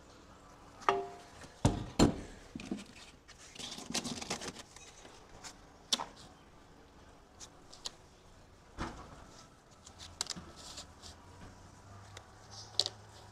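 Scattered clicks and taps of shims being handled and set on a wooden window sill while it is levelled, with a couple of louder knocks a little under two seconds in.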